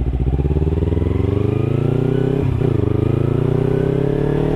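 Kawasaki Ninja 300's parallel-twin engine accelerating away from a stop, its pitch climbing steadily. It upshifts about two and a half seconds in and again at the very end, the revs dropping and then climbing again each time.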